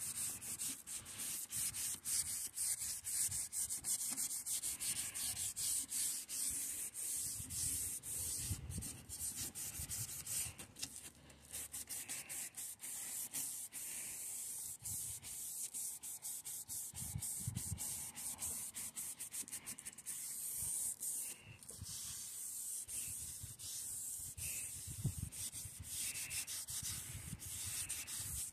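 Hand sanding a 2016 Toyota Camry's plastic headlight lens with a hand-held sanding disc: quick back-and-forth strokes make a continuous scratchy rasp.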